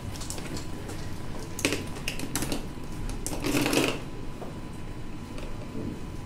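Sheets of paper rustling and being shuffled in a few short bursts, the longest and loudest about three and a half seconds in, with light clicks and knocks between.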